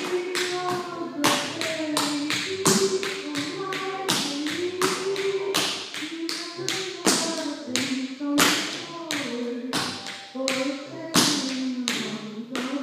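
Tap shoes striking a wooden studio floor in a fast tap routine: dense runs of sharp taps, several a second, with a few louder stamps standing out.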